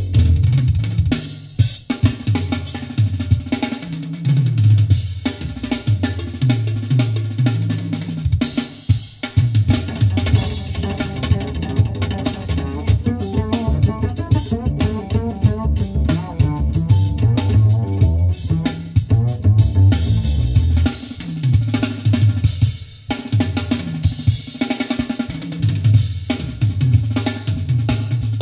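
Instrumental music led by a busy drum kit over a moving bass line, played back over a custom car audio system and recorded inside the car's cabin.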